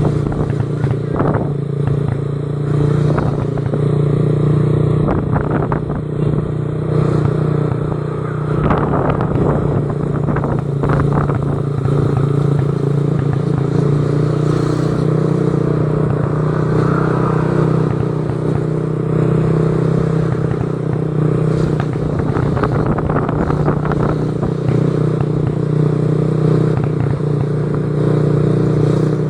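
An engine or motor running steadily with a low hum and scattered irregular clicks, a noise taken for a strange sound.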